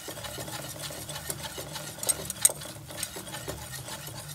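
Wire whisk beating butter and flour into a roux in a stainless-steel saucepan: rapid scraping and clicking of the metal wires against the pan, with a few sharper taps about two seconds in.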